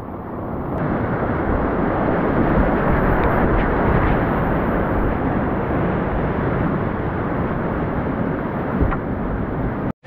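Loud, steady roar of rushing whitewater heard from a kayak running a rapid.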